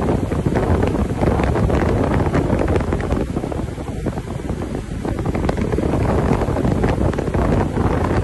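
Steady wind buffeting the microphone of a 2008 Sea-Doo personal watercraft cruising at about 5,500 rpm, with the craft's engine and hull on the water running beneath it. The noise dips slightly about four seconds in.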